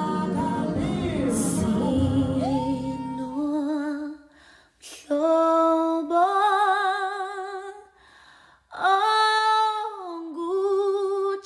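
A woman singing a slow gospel song in isiZulu, with a wide vibrato on long held notes and two short pauses between phrases. For the first three or so seconds fuller backing music sits under the voice; after that she sings alone.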